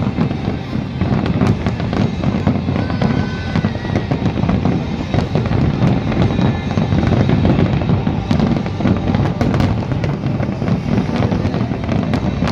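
Fireworks display: a dense run of bangs and crackling shell bursts over a continuous low rumble, with music playing along.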